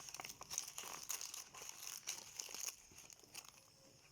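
Banana leaf rustling and crinkling as it is laid and folded over food in a pan, a quick run of crackles that dies down after about three seconds.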